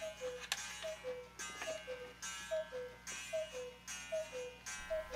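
Background music: a light, repeating two-note figure, a higher note then a lower one, a little more than once a second, over a faint ticking beat.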